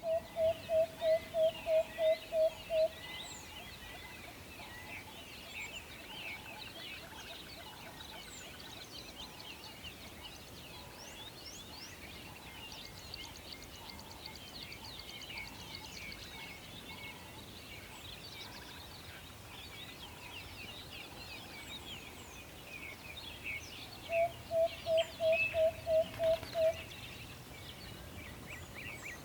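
An owl giving a quick run of short, even hoots, about three a second, at the start and again near the end. Under them runs a steady chorus of high-pitched songbirds.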